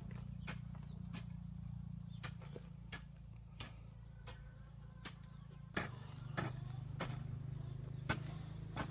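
A steady series of sharp knocks, roughly one every two-thirds of a second, getting louder about two-thirds of the way through, over a low steady hum.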